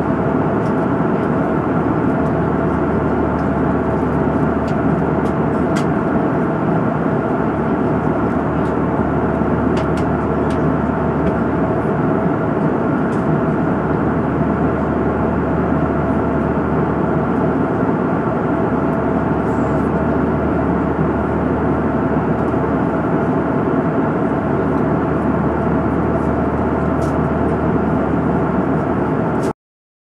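Steady roar of a jet airliner's cabin at cruise altitude: engine and airflow noise with a few constant tones in it. It cuts off suddenly near the end.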